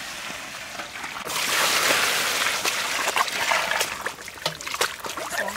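Water poured from a bowl into a large metal basin of vegetables, a steady rushing pour that swells about a second in. Near the end it gives way to hands splashing and sloshing the vegetables about in the water.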